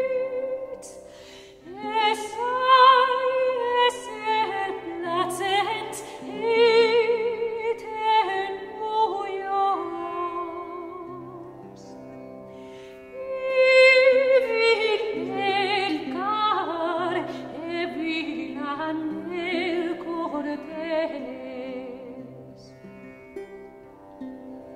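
Background classical music: an operatic voice sings long phrases with vibrato over a held accompaniment, pausing briefly about halfway through before a new, louder phrase.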